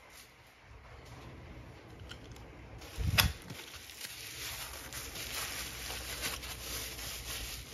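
Plastic bubble wrap around a paperback book being handled: a thump about three seconds in as the package is picked up, then steady crinkling and rustling of the wrap with small crackles.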